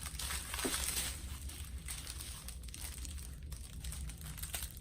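Small plastic bags of diamond painting drills crinkling as they are handled and counted.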